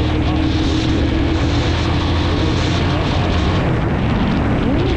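Spark SP200R-28 motorcycle's 198 cc four-stroke engine running under way at a steady engine speed, with a dense low rumble of wind and road. Near the end the engine pitch drops and climbs again before settling back to its steady note.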